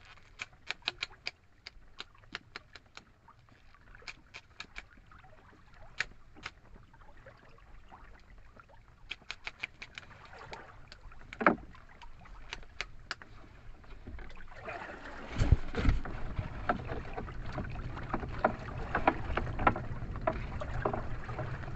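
Sharp clicks and crackles of a nylon lobster net being worked by gloved hands while a lobster is picked out of the mesh. About fifteen seconds in, a louder rush of wind and water with a low thump comes in as the net is hauled over the boat's side, and the clicks carry on.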